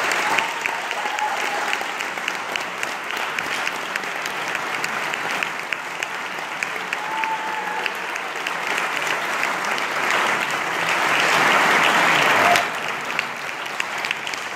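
Audience applauding, a dense patter of many hands clapping. The applause swells louder about ten seconds in, then drops back abruptly a couple of seconds later.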